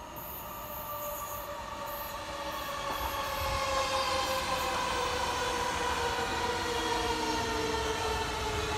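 SL X60 electric commuter train running past with a whine of several tones that slowly falls in pitch, over a low rumble that grows louder.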